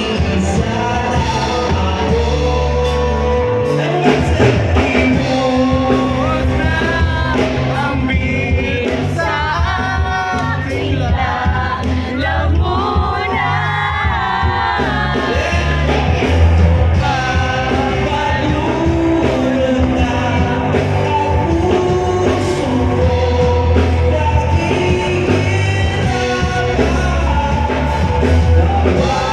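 Loud rock music with a singing voice over a steady bass beat.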